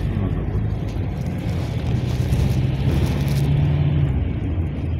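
Engine and road noise heard from inside the cabin of a moving GAZ Next minibus. The engine's low drone climbs in pitch from about two seconds in and falls away near the end.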